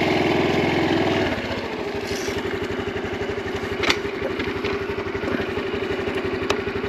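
Honda Super Cub 125's single-cylinder engine running a little above idle for the first second or so, then dropping back to a steady idle. Two faint clicks come later.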